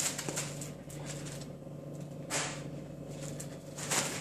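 Husky puppy playing with a foil balloon on a hard floor: a few sharp crinkly knocks and rustles as the balloon is bumped and bitten, with lighter clicks between. The loudest knocks come near the start, about halfway through and near the end.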